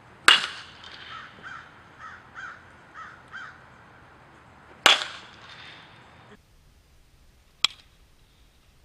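Metal baseball bat hitting a ball three times, each a sharp ping with a short ring: once near the start, again about five seconds in, and once near the end. Between the first two hits, a bird calls six times at an even pace.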